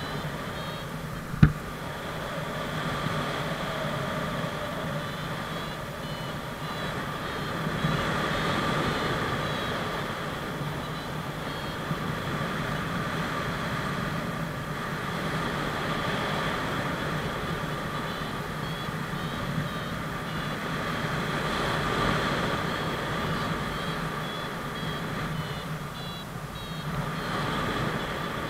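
Wind rushing over the camera's microphone in paraglider flight, swelling and easing. Short high beeps from a flight variometer come and go, and there is one sharp knock about a second and a half in.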